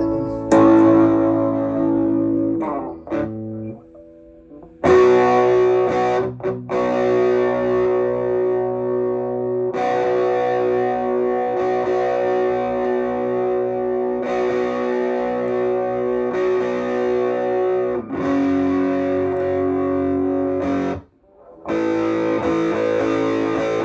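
Jackson DK2S electric guitar played through a Fender Princeton-style amp: chords strummed and left ringing for several seconds each, changing about every two to five seconds, with brief breaks about four seconds in and near the end. Its Sustainiac sustainer pickup is still switched off.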